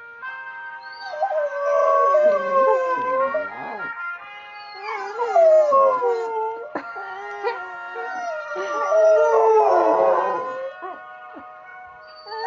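Springer spaniels howling along to a television theme tune, in long wavering howls that slide up and down in pitch, in about three bouts, the loudest near the middle and about three-quarters of the way through. The tune's steady held notes play underneath.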